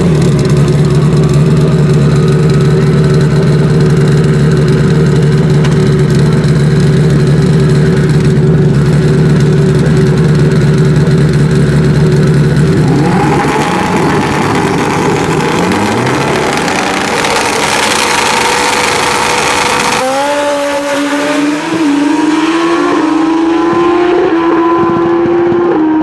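Pro Street drag motorcycle engines held at a steady speed on the starting line, then revving with sliding pitch. From about 20 seconds in, the engines accelerate down the track, their pitch climbing with a short drop at each gear change.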